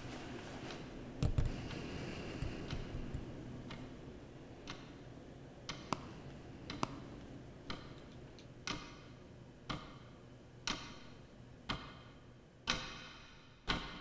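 Clock ticking about once a second, the ticks growing louder and more echoing toward the end. A couple of low thumps about a second in, over a low room hum.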